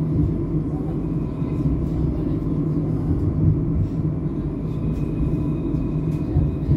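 Tram running, heard from inside the car: a steady, even rumble with a faint high steady tone over it and a few light ticks.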